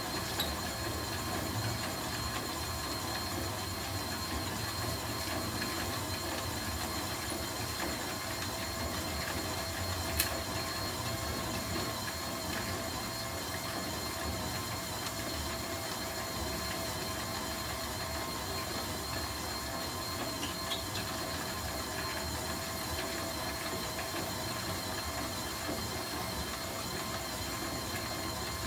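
Homemade popcorn machine running steadily, its motor giving a whine of several steady tones over a low rumble, with a single sharp click about ten seconds in.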